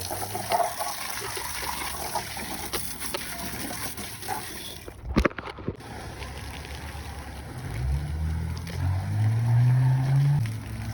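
Water spraying from a hose as the outdoor AC condenser coil is rinsed, with a few sharp clicks near the middle. About eight seconds in, a low motor hum starts and rises in pitch before levelling off.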